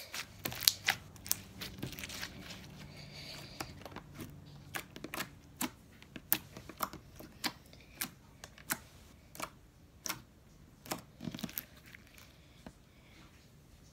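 Putty slime being pressed and stretched by hand, making irregular sharp clicks and pops that thin out near the end.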